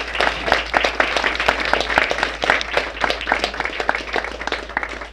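A small audience applauding, many hands clapping at once, thinning out near the end.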